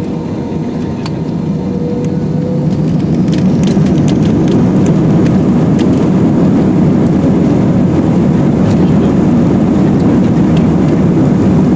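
Inside the cabin of an Airbus A320-family airliner during the takeoff roll: the jet engines' steady noise and runway rumble grow louder over the first few seconds and then hold level, with a few light clicks and rattles.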